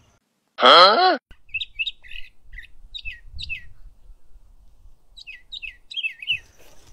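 Small songbirds chirping in quick short notes that fall in pitch, in clusters, over faint dull thuds of hoes chopping into soil. About half a second in, a brief loud voiced exclamation with a sliding pitch comes first.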